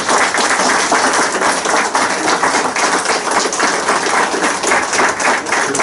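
Loud applause from a small crowd, many pairs of hands clapping in a dense, steady patter.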